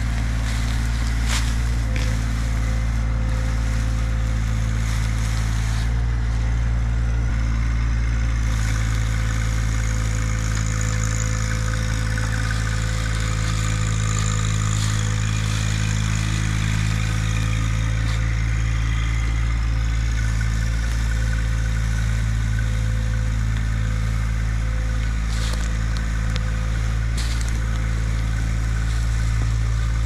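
Compact tractor's engine running steadily at a constant speed while it drags a pine log on a strap and chain over the forest floor. A few sharp clicks stand out above the engine.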